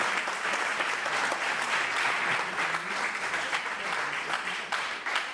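Audience applauding, the dense clapping thinning out into a few separate claps near the end.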